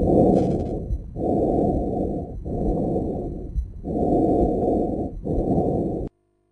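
Auscultation recording of normal tracheal breath sounds: breathing in and out in phases of about a second each, with short gaps between them. It cuts off about six seconds in.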